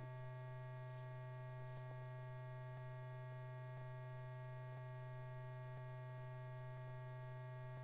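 Steady low electrical hum with a stack of higher overtones, the background hum of an old film soundtrack, with a couple of faint clicks.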